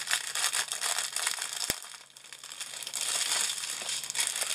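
Plastic packaging of a diamond-painting kit crinkling as it is handled, with a sharp click just before a brief lull about two seconds in, then crinkling again.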